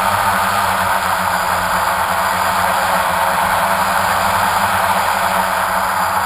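Multirotor drone's electric motors and propellers running steadily, heard close up from the camera carried on the drone: a loud, even hum and rush.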